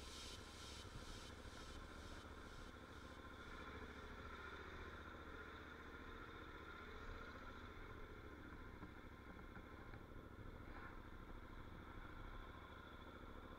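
Faint motorcycle engine running steadily, with a low rumble. The beat of background music fades out over the first few seconds.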